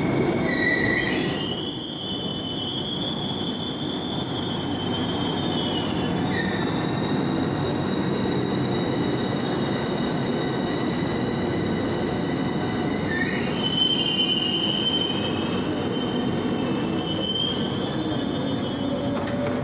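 CAF metro train rolling slowly into a station, with a steady rumble and a high metallic squeal. The squeal rises about a second and a half in, holds, fades around six seconds, then comes back in wavering tones about two-thirds of the way through.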